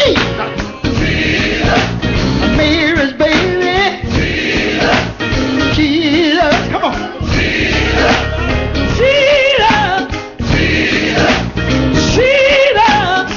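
Gospel music: a choir and lead singer with full band accompaniment, the voices held in long notes with heavy vibrato.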